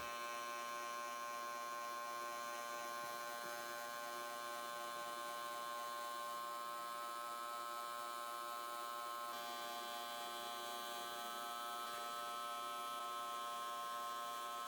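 Faint steady hum made of many high, unchanging tones, with no other events.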